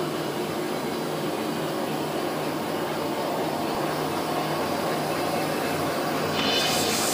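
Two-line N/Z-fold hand towel paper machine running: a steady mechanical drone of rollers and folding gear with a low hum. A brighter hiss joins in near the end.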